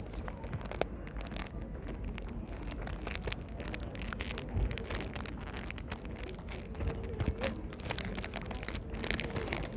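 Clear plastic wrapper crinkling and crackling close to the microphone as hands open it to take out a face mask: many quick, irregular crackles.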